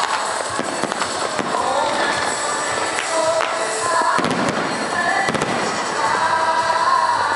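Fireworks going off overhead: a run of sharp bangs and crackles from bursting shells.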